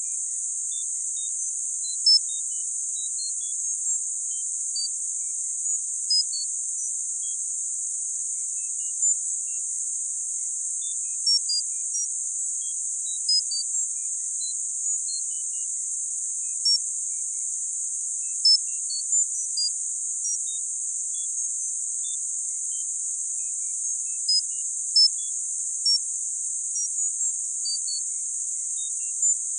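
Electronic tinnitus-therapy sound: a steady high-pitched hiss of band-limited noise, with short soft pips at scattered pitches popping in irregularly, about one or two a second. It is meant to be played at the same loudness as the perceived ringing, to mask and relieve tinnitus.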